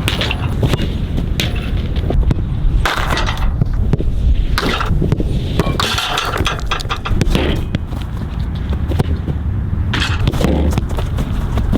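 A soccer ball being touched and kicked: repeated sharp taps and knocks, with several louder scuffing strikes spread through, over a steady low rumble.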